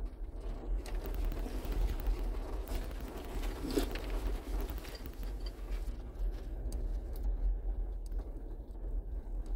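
Low steady rumble of a 4x4 crawling along a gravel forest trail, heard from inside the cab, with small clicks and crunches from the tyres on gravel and one brief louder knock about four seconds in.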